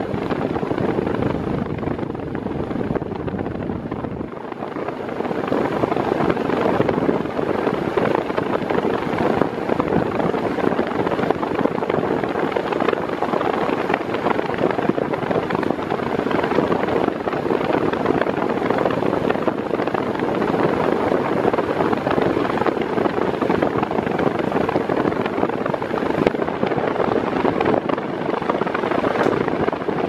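Mondial Turbo Force 8 40 cm, 140 W floor fan running fast with a four-blade propeller fitted in place of its eight-blade one: a steady, loud rush of air from the blades, wavering slightly in level.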